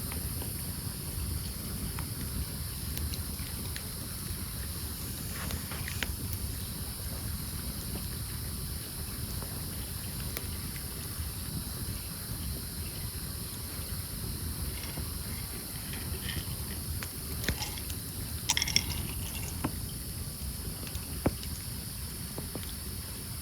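Campfire of burning logs crackling, with a few sharp pops, a cluster of them late on, over a steady low rush and hiss.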